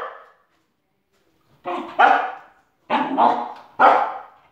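Spoodle (cocker spaniel–poodle cross) barking excitedly at a shadow on the wall: about five barks starting a second and a half in, some coming in quick pairs.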